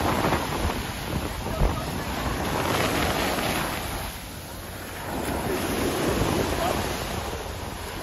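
Low ocean surf breaking and washing up the sand, swelling about three seconds in and again about six seconds in, with wind buffeting the microphone.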